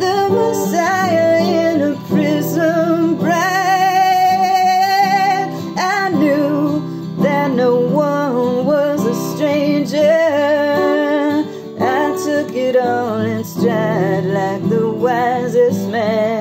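A woman singing with vibrato to her own acoustic guitar accompaniment, holding one long note a few seconds in.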